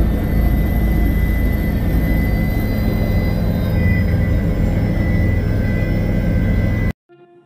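Helicopter cabin noise in flight: a loud, steady drone of the rotor and turbine engine with a thin high whine over it. It cuts off suddenly near the end.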